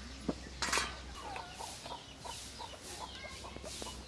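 Chickens clucking in a run of short notes, with a brief rustle of paper and cloth about half a second in as a bundle of dried fish is unwrapped and handled.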